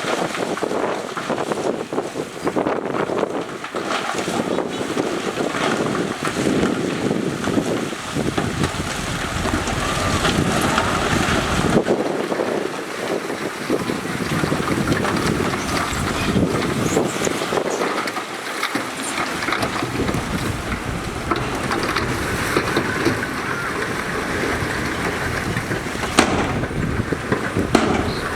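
Heavy construction machinery running, a steady engine rumble mixed with gusts of wind buffeting the microphone.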